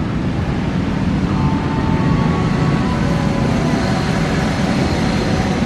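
CC 206 diesel-electric locomotive hauling a container freight train, its engine and the train running with a steady low rumble that grows a little louder over the first couple of seconds as it approaches.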